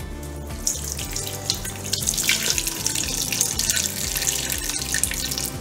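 Water poured from a glass measuring cup into a stainless steel stand-mixer bowl: a steady splashing pour that starts about half a second in and is fullest from about two seconds on.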